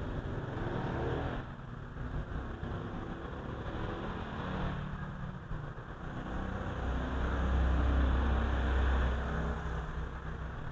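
Motor vehicle traffic passing outside: a low engine rumble that swells to its loudest about seven to nine seconds in, then eases off.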